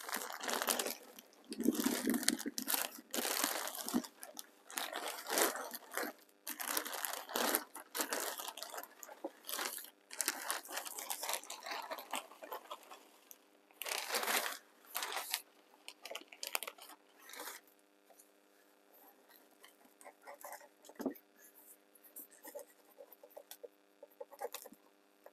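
Compost being poured from a plastic multi-purpose compost bag into a container: irregular crinkling of the bag and rustling of the falling soil in bursts, growing sparser and fainter after about 18 seconds.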